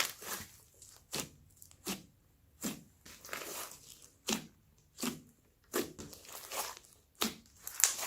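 Hands squishing and pressing a mixed batch of slime, making wet crackling pops about once every 0.7 s.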